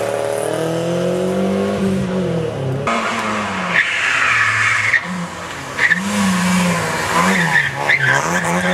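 Rally car engines at full throttle: one car accelerates away, its revs climbing. Then a second rally car arrives, its engine revs falling and rising as it brakes and shifts down into a hairpin, with tyre squeal and a few sharp cracks.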